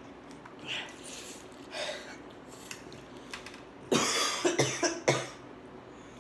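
A boy coughing in a quick fit of about four coughs, starting about four seconds in, with his hand at his mouth. It is the chilli heat of spicy Korean fire noodles catching his throat.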